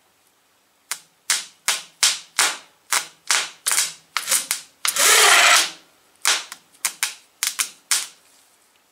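Ford flathead V8's 6-volt starter motor, off the engine and jumped from a 12-volt battery, whirring in about fifteen short bursts that each start sharply and die away, with one longer spin of about a second midway. It spins but doesn't sound good: its through-bolts are loose.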